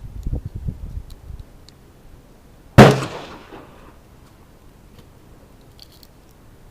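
A single handgun shot about three seconds in, a sharp crack that echoes for about a second before dying away.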